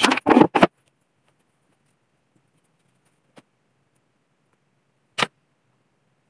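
Two short knocks from hobby horses being handled on their wall hooks: a faint tap about three seconds in and a sharp knock about five seconds in, in an otherwise quiet small room.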